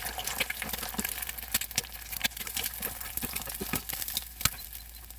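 Oil sizzling and crackling in a frying pan, with many irregular pops over a steady hiss.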